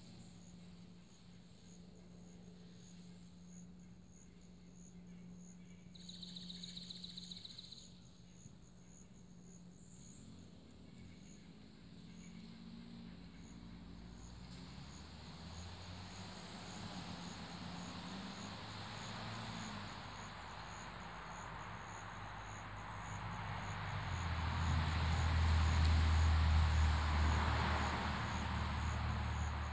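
Insects chirping steadily in a high, evenly pulsed rhythm, with a brief buzzing trill about six seconds in. Over the second half a rushing sound with a deep rumble swells, loudest near the end.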